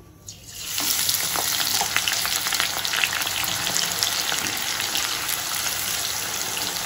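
Sliced onions sizzling and crackling in plenty of hot oil in a steel kadai. The sizzle starts within the first second as the onions hit the oil, then stays steady with many small pops. Near the end a perforated steel spoon stirs them. This is deep-frying onions into crisp fried onions (beresta).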